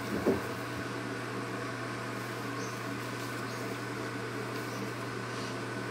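A steady low electrical or mechanical hum with a faint background hiss, and a single soft knock just after the start.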